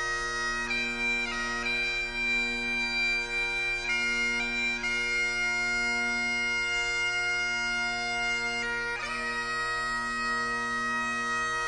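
Bagpipes playing a slow tune: long held melody notes changing every second or few seconds over steady, unbroken drones.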